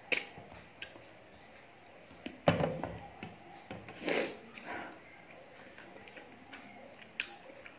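Eating by hand from a steel plate: scattered small clicks and mouth sounds of chewing, with a sharper knock about two and a half seconds in and a short noisy smack about four seconds in.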